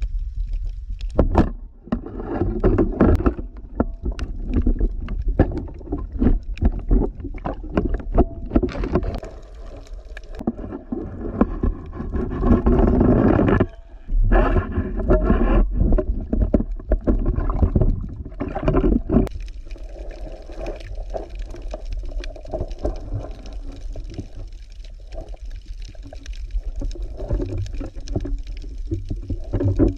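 Muffled underwater sound of a spearfisher moving through the water at night: a low water rumble and gurgling with many sharp clicks and knocks.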